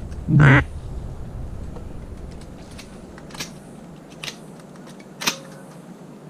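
A loud duck quack about half a second in, then scattered sharp clicks and taps.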